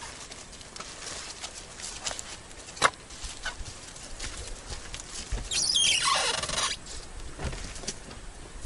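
Wooden dugout door pulled open, its hinges squealing for about a second with a falling pitch. Before it come footsteps rustling in dry leaves and one sharp knock.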